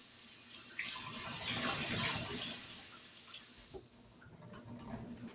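Kitchen sink faucet running as sticky hands are washed under it, shut off about four seconds in.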